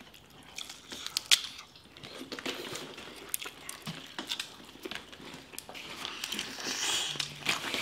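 Shellfish from a seafood boil being cracked and peeled by hand and chewed: irregular crackling and clicking of shells, with one sharp snap about a second in.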